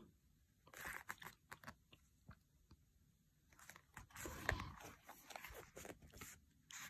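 Faint, scattered rustles and small clicks of a thick book being handled, fingers moving on its paper pages, a little busier and louder past the middle.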